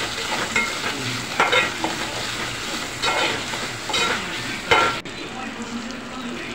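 Sliced onions and tomatoes frying in a little oil in a metal pan, sizzling, as a metal spatula stirs and scrapes them against the pan about once a second. The sound turns quieter for the last second or so.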